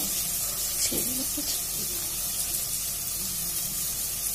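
Sliced onions and green chillies frying in hot oil in a steel pot, a steady sizzle.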